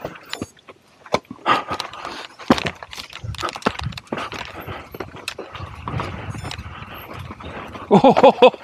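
Mountain bike descending a rocky, dusty trail: tyres rolling over dirt and stone, with frequent irregular rattles and knocks from the bike. Near the end a short, loud pitched sound stands out.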